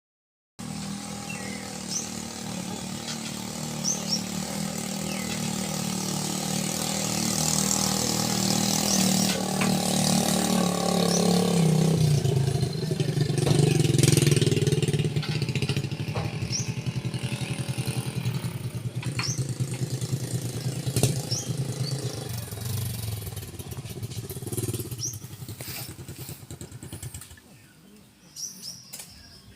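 A motor vehicle's engine running steadily. Its note drops lower about twelve seconds in, then fades away toward the end.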